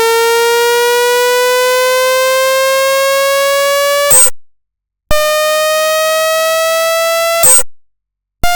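Electronic synthesizer tone, buzzy and rich in overtones, gliding slowly upward in pitch like a siren for about four seconds and cut off by a short noisy burst. After a brief silence a second, higher tone rises for about two and a half seconds and ends the same way, and a third begins right at the end.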